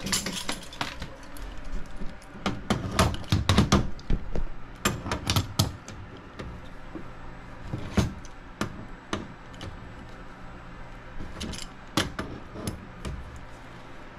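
Metal clicks and clinks of pliers gripping and turning the nut on the liquid line's aluminum threads at an air handler coil, in short irregular bursts. The loudest cluster comes about three seconds in, with single clicks scattered through the rest.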